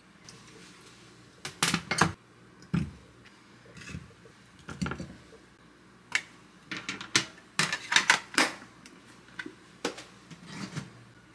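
Irregular clicks and knocks of hard kitchenware being handled, coming in small clusters, densest and loudest in the second half.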